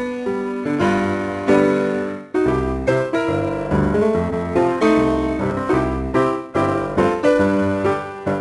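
Background music led by piano: a bright, bouncy keyboard tune over a steady bass beat.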